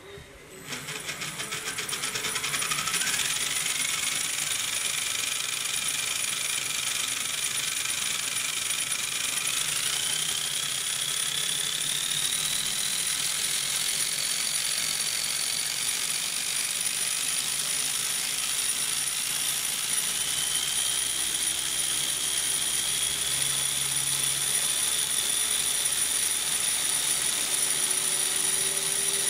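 Homemade RC helicopter main rotor gearbox and rotor head driven by a small electric motor, run up on a test bench. It starts about half a second in and spins up over a few seconds with a rising whine and a dense gear clatter. The whine steps higher twice around the middle, falls back, then creeps up slowly near the end.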